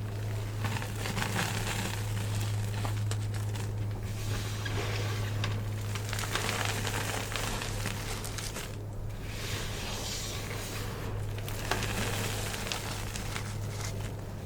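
Thick green gym chalk being crushed: a dense, continuous crackling and crunching, with brief lulls about four and nine seconds in, over a steady low hum.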